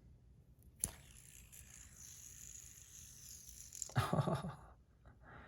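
Handling noise as objects are moved about on a desk: a sharp click, then faint scraping and rustling, with a louder burst of handling noise about four seconds in.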